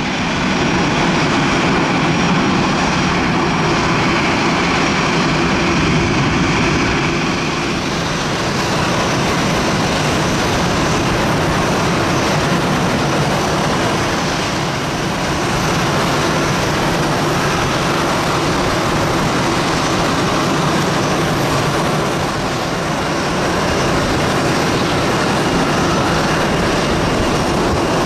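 Steady jet noise from an Airbus A330-300 on the apron while a tug pushes it back; a high whine over the noise fades out about eight seconds in.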